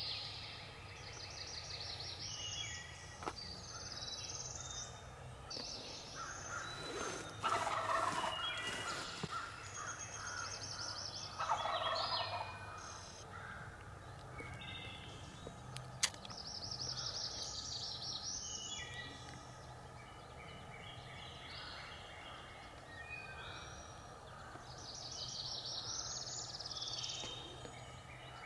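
Male wild turkey gobbling twice from its roost, loud rattling gobbles about a third of the way in, among a dawn chorus of songbirds singing high, repeated phrases. A single sharp click near the middle.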